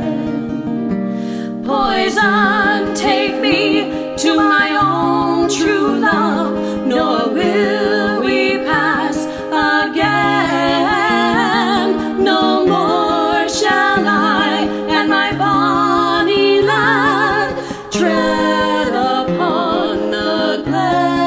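Folk-style vocal music: a singing voice with strong vibrato carries the melody over held lower notes in harmony.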